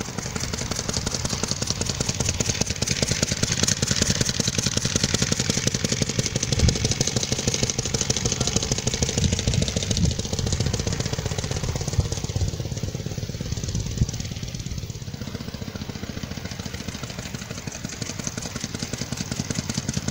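The 1903 Clement narrow V-twin motorcycle's clip-on engine runs under way as it is ridden, giving a rapid, continuous firing beat. The sound drops a little in the middle stretch and grows louder again near the end.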